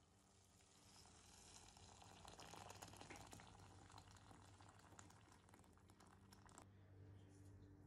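Water poured into a stainless steel pot of vegetables and chickpeas, a faint steady splashing stream that cuts off abruptly near the end.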